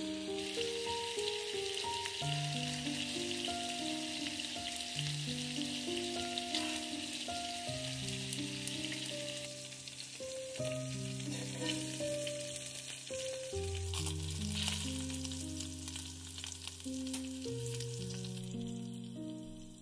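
Ground-meat and grated-carrot patties frying in oil in a pan, with a steady sizzle and a few sharp pops. Background music with slow, held notes plays over it.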